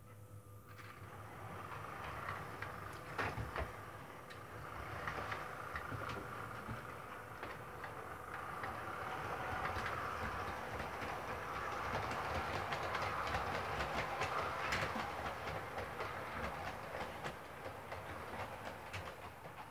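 Model Class 33 diesel locomotive and its coaches running along model railway track, with a steady running noise and quick clicks as the wheels cross the rail joints. It grows louder toward the middle and fades near the end.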